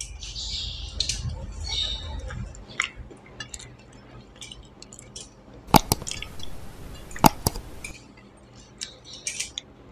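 Fingers mixing rice and vegetables by hand on a steel plate: soft squishing and scraping with light clinks of metal, and two sharper clinks a second and a half apart past the middle.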